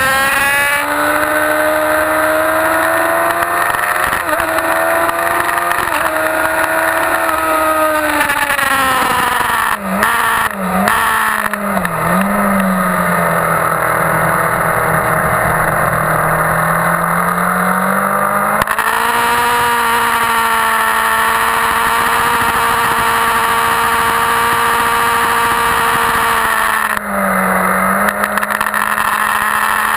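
2001 Yamaha YZF-R1's inline-four engine running hard at high revs, ridden on track. Its pitch rises and falls with the throttle. About eight seconds in the revs fall away, with a few quick dips as the rider brakes and shifts down into a corner, then they climb again out of it. There is another short drop near the end.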